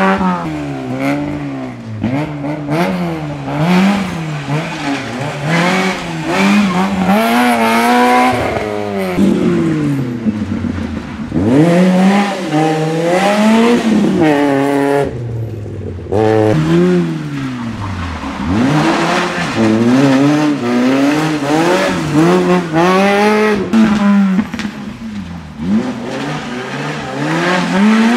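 Small four-cylinder rally cars, Peugeot 106s and a Renault Clio, taking a hairpin one after another. Each engine revs hard as the car accelerates away from the turn, its pitch climbing and dropping again with every gearshift.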